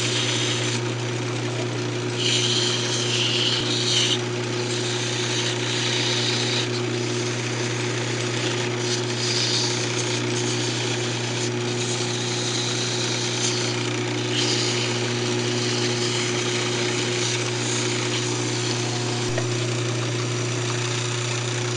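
Wood lathe running at reduced speed with a steady hum, while sandpaper held against the spinning cocobolo duck call hisses in spells that come and go.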